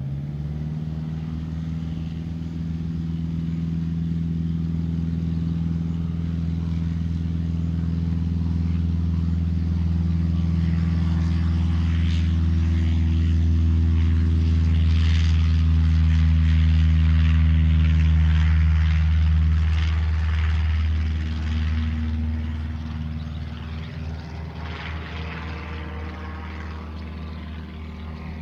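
Cessna 150F's Continental O-200 four-cylinder engine and propeller at full takeoff power. The engine note rises as the throttle comes up at the start. It grows louder through the takeoff roll and lift-off, drops in pitch as the plane passes, and fades as it climbs away.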